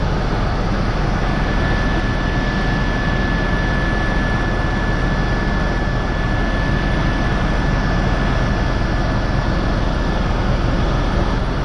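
Helicopter in flight heard from inside the cabin: a steady, loud rush of engine and rotor noise with a thin high whine held over it.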